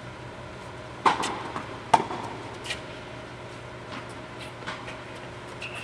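Tennis ball struck by rackets twice, sharp pops about a second in and just under a second later, echoing in an indoor tennis hall, followed by a few fainter knocks of the ball and play. A steady low hum runs underneath.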